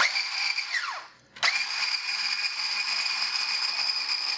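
Immersion blender with a whisk attachment whipping butter in a glass measuring jug: a high motor whine that winds down and stops about a second in, then starts again and runs steadily.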